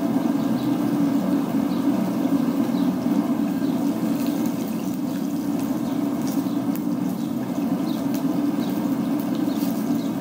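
Oil quench: a hot rail-spike knife blade held in a bucket of dirty used diesel engine oil, the oil burning and seething around it with a steady rushing noise and faint crackles. The oil dip is meant to add carbon to the steel's surface.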